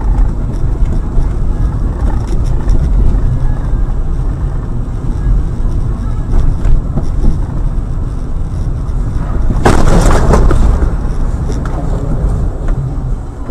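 Car driving, recorded by a dash camera: a steady low rumble of road and engine noise, broken about ten seconds in by a sudden loud, noisy impact lasting under a second, typical of a collision.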